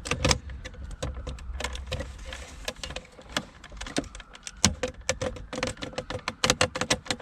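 Irregular clicks, taps and rattles of hard plastic as USB charger modules and a trim panel are handled and pressed into a car's centre console, with the clicks coming thicker near the end.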